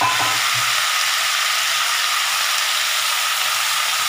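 Freshly added chopped tomatoes sizzling in hot oil in a kadai: a steady frying hiss with crackling.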